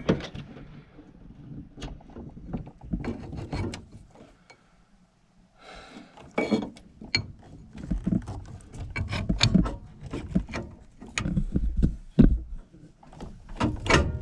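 Irregular clicks, clinks and knocks of hand tools and metal parts being worked inside a gas furnace during a gas valve replacement, with a brief lull partway through.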